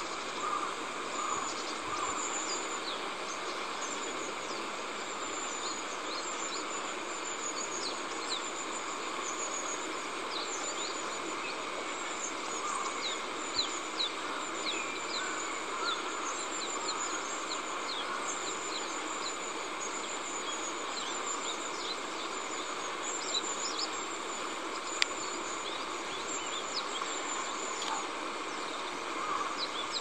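Outdoor ambience: insects chirping in short, rapidly repeated high pulses over a steady background rush, with scattered brief high chirps. One sharp click about 25 seconds in.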